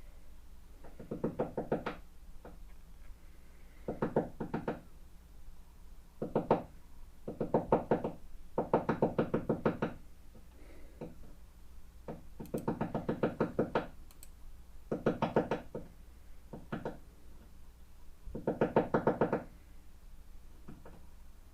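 Woodpecker pecking on the building's wooden siding: bursts of rapid, evenly spaced knocks, each up to about a second and a half long, repeated every couple of seconds.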